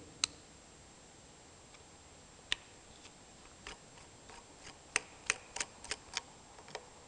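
Screwdriver backing a small screw out of a metal relay housing: faint, scattered metallic clicks and ticks of the blade on the screw head. The clicks come more often about five seconds in.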